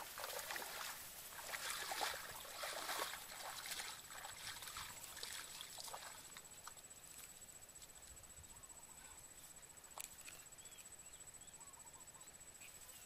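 Wading footsteps sloshing and splashing through shallow floodwater among grass, loudest in the first few seconds and fading as the walker moves away. A steady high thin tone and a few faint chirps sit behind it.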